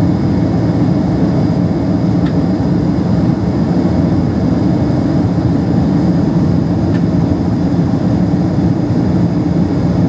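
Steady, even jet engine and airflow noise inside a Boeing 767-300ER cabin in flight, heard from a window seat beside the engine: a constant deep rumble.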